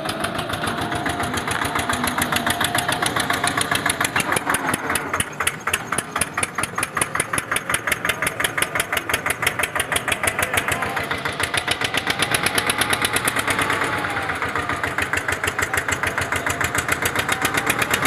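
Diesel engine of a heavy backhoe loader or farm machine running steadily with a rapid, even knock, alongside a faint whine that wavers in pitch.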